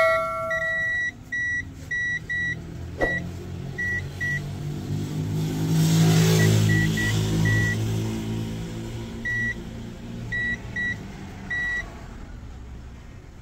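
Multimeter continuity buzzer beeping in short, irregular bursts as the probes touch points on the receiver's board, the beep signalling a short circuit. A vehicle engine drones past, loudest about six seconds in.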